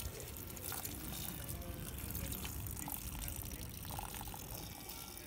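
Water poured in a thin, steady stream from a plastic cup, trickling into a metal street drain grate.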